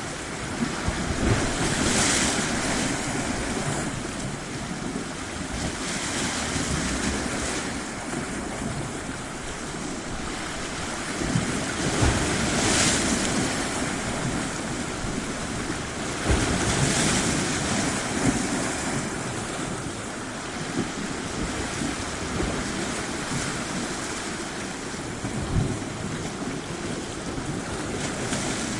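Surf washing onto a tropical shore: a steady rush of water that swells and eases as waves break every few seconds, with occasional low bumps of wind on the microphone.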